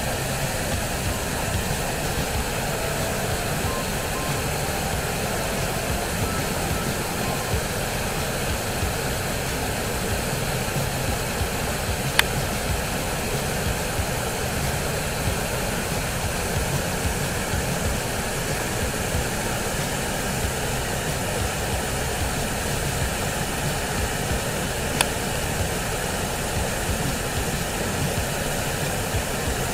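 Waterfall of swollen, muddy water pouring over a rock ledge into a churning pool: a steady rush of falling water. Two brief clicks, one about twelve seconds in and one about twenty-five seconds in.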